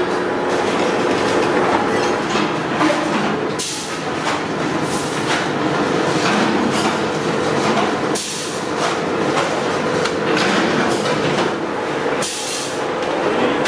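Steel roll-forming machine running under a steady motor hum, its gears and rollers clattering as a curved mudguard strip feeds through. The clatter dips briefly three times, about every four seconds.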